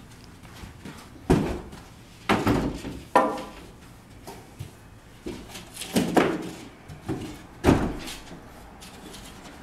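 Large sheet of oriented strand board (OSB) knocking and scraping against a glass door and its frame as it is manoeuvred upright to board the door over: about five heavy, irregular thumps, each with a short scrape after it.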